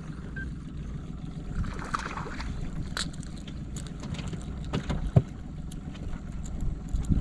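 Low steady rumble with scattered small knocks and clicks from handling gear in an aluminium boat, and one sharper knock about five seconds in.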